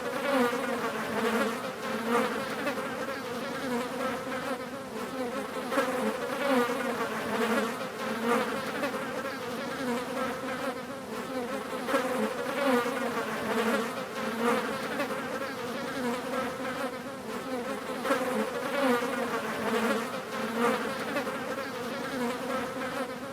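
Several flies buzzing continuously, their drone wavering and swelling as they fly close and away.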